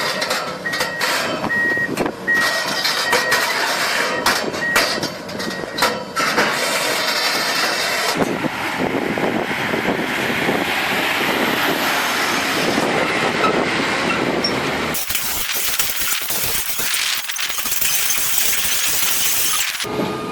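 Heavy machinery working, with engine noise and a reversing alarm beeping at an even pace during the first several seconds, along with scattered clicks and knocks. After that comes a steady noisy rumble and hiss, which changes abruptly at about fifteen seconds.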